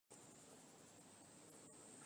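Near silence: a faint, steady background hiss with a thin high whine.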